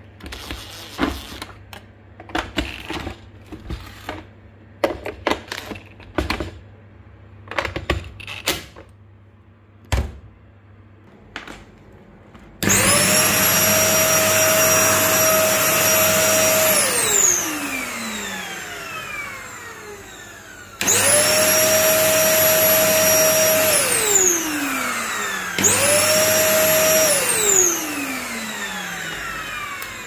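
A cordless drill-driver drives screws into the vacuum cleaner's housing in a dozen or so short bursts. Then the vacuum cleaner's motor is switched on three times, about 12, 21 and 25 seconds in. Each time it spins up to a loud, steady whine and winds down with a falling pitch when switched off, showing it runs again now that the damaged power cord has been re-wired.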